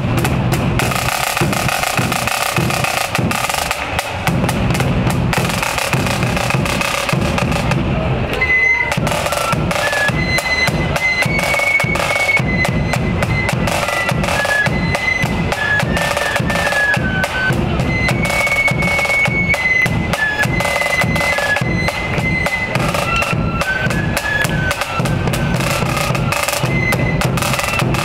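Marching band in a street parade: drums playing a busy, steady beat throughout, with a high melody line joining about eight seconds in.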